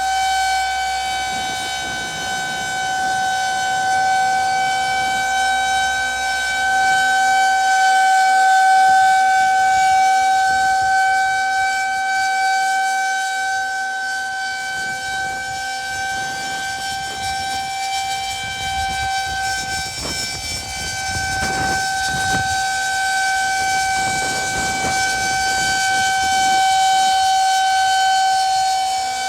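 Federal Signal 2001-130 rotating outdoor warning siren sounding the steady alert signal: one unbroken tone held at a constant pitch, swelling and fading slowly in loudness as the siren head rotates.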